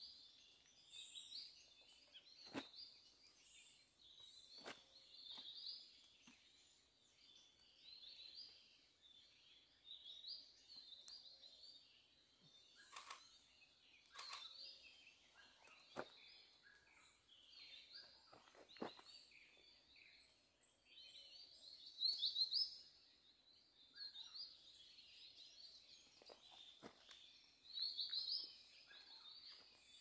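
Faint forest bird chorus: many small birds chirping and twittering without a break, with louder bursts of twittering a little past the middle and near the end. A few sharp clicks are scattered through.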